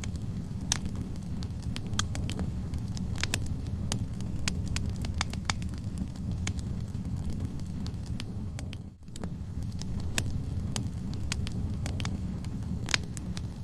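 Wood fire burning in a fireplace: a steady low rumble of flames with irregular sharp crackles and pops from the burning logs. The sound dips briefly for a moment about two-thirds of the way through.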